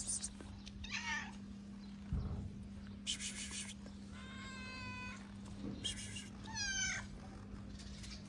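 A hungry stray cat meowing three times: a short falling meow about a second in, a longer drawn-out meow about halfway, and a falling meow near the end.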